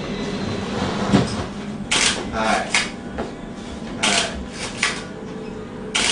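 A person's voice in three short phrases over a steady low background hum.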